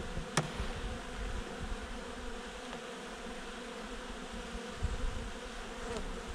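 Honeybees buzzing from an open hive full of bees, a steady hum, with a single sharp click about half a second in. Near the end a bee flies close past.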